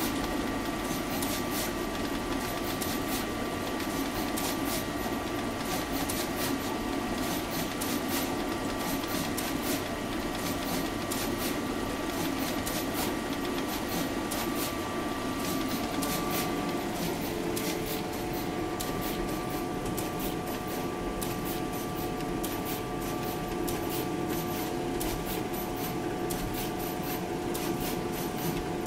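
Hanwha Decan F2 pick-and-place machine running: a steady hum and whine from its linear-motor gantry, with rapid ticking clicks as the head picks and places components. A new whine tone joins about halfway through.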